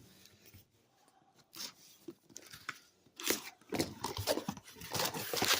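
Packing paper rustling and crinkling as it is handled and pulled out of a shipping box, faint at first and louder from about three seconds in.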